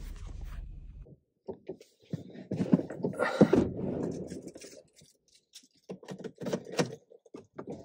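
Rustling, clicks and knocks of someone moving about and handling things inside a car. A low rumble in the first second stops abruptly.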